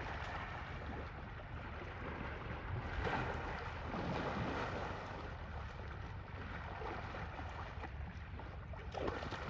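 Asian elephants moving in a muddy pool, water sloshing and splashing, with wind rumbling on the microphone. The splashing swells louder about three seconds in and again briefly near the end.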